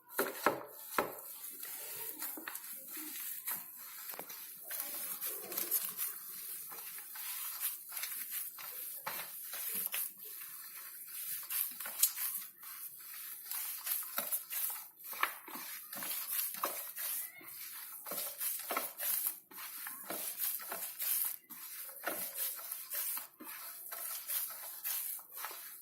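Hands kneading mashed boiled potato with soaked, squeezed bread in a bowl: irregular soft squishes and light taps against the bowl, over a steady high hiss.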